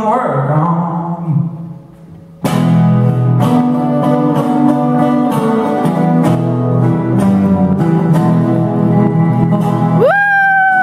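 Two acoustic guitars strummed together in a live duo performance. The music drops away a little before two seconds in, then both guitars come back in loud with steady strumming. Near the end a single high held note slides up and then falls away.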